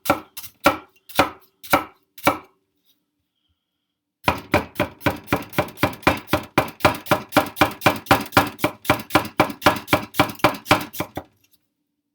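Chinese cleaver chopping on a cutting board: a few strokes, a pause of almost two seconds, then a long run of quick, even strokes, about four a second, that stops about a second before the end.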